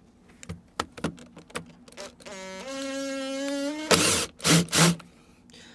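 Power tool work on the boat's timber: a few knocks, then a motor whines steadily for about a second and a half, stepping up in pitch partway, followed by three loud harsh bursts. The attempt fails to free the piece.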